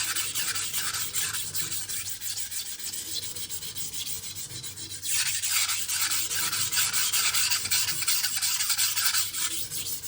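Steel knife edge scraped back and forth on a coarse 400-grit sharpening stone in quick, repeated strokes. The strokes ease off for a couple of seconds around the middle, then come back louder.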